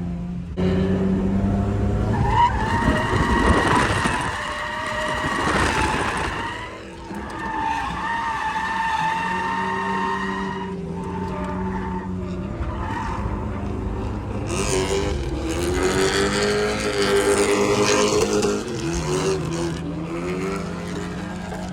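Car drifting on a race track: the engine is held at high revs with its pitch rising and falling, and the tyres squeal and skid in two longer surges, near the start and again past the middle.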